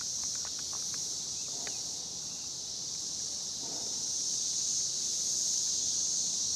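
A steady, high-pitched chorus of insects, unbroken throughout, with a few faint clicks near the start.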